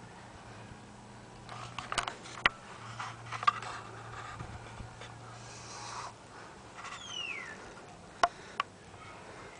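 Handling noise from a handheld camera moving around a small car cab: scattered clicks and light knocks against the interior trim, over a faint low hum, with a short falling squeak about seven seconds in.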